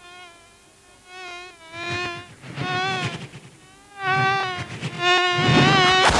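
Cartoon fly-buzzing sound effect: a wavering insect buzz that comes in several short swooping passes, louder and longer near the end.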